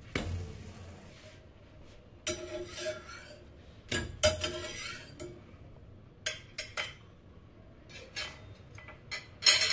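A stainless steel spatula scraping and clinking against a cast iron pan as a pancake is flipped and lifted out, then clinking on a plate. It comes as a string of separate sharp clinks and scrapes, some ringing briefly, the loudest near the end.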